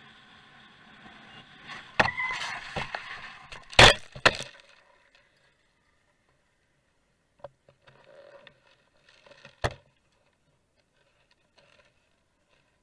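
Road crash: after a steady vehicle running noise, a run of impacts and scraping begins about 2 s in, with the loudest bang just before 4 s, and is over by about 4.5 s. Afterwards there are only a few faint knocks and one sharp click near 10 s.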